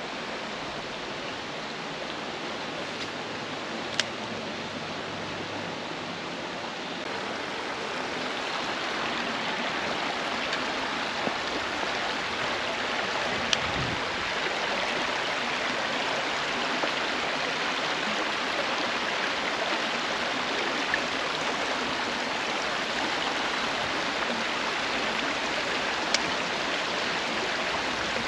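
Shallow creek water running over stones in a riffle, a steady rush that grows a little louder several seconds in. A few light clicks stand out now and then.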